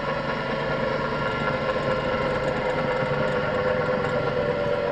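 Bench grinder with a freshly dressed wheel spinning freely with no work against it, giving a steady hum and whine.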